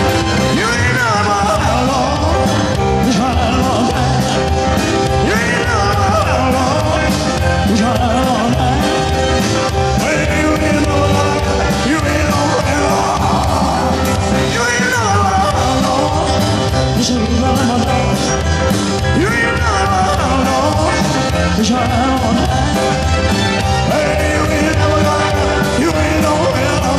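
Live rock-and-roll band playing with drums, electric guitar, bass and keyboards, a male lead singer singing over it.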